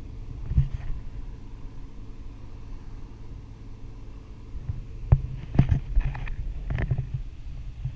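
Wind buffeting a camera microphone high in the air under a parasail, a steady low rumble, with a few sharp knocks about half a second in and several more between five and seven seconds in.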